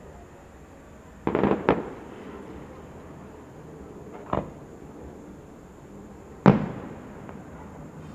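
Aerial firework shells bursting in separate bangs: a quick pair about a second in, a single bang near the middle, and the loudest a little over six seconds in, its echo trailing off.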